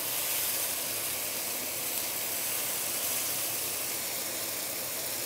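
Turmeric-coated fish pan-frying in hot oil in a non-stick wok: a steady sizzling hiss.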